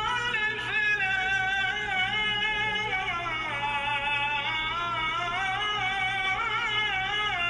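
A solo voice singing a slow, ornamented melody that glides between long held notes, with no beat.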